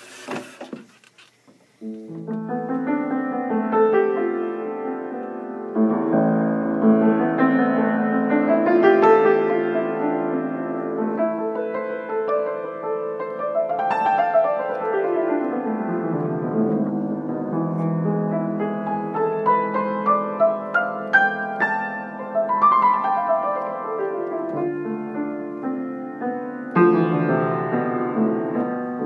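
Acoustic piano being played: full, sustained chords with arpeggios sweeping up and down the keyboard. The playing starts about two seconds in, after a few brief knocks.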